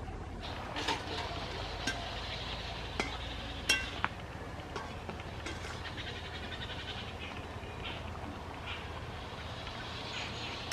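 Metal dishware clinking: several sharp clinks in the first four seconds, one ringing briefly, then fainter scattered clicks over a steady low hum.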